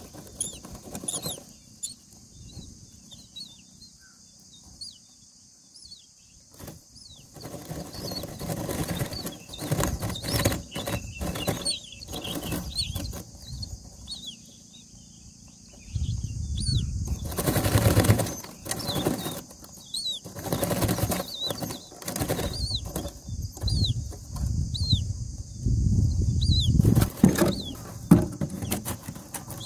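Adult common myna shuffling and flapping its wings in a nest of dry grass, giving a series of rustling bursts and heavier thuds that grow busier about halfway through. Its nestlings give thin, short begging cheeps throughout.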